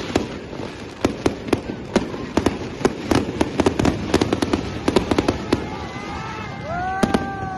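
Fireworks going off in quick succession: sharp bangs and crackles several times a second over a steady hiss. In the last second or so a drawn-out pitched tone, gliding slightly, joins them.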